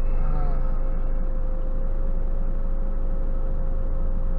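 Volvo FM400 truck's diesel engine idling steadily, heard from inside the cab, as a low rumble with a thin, constant whine above it.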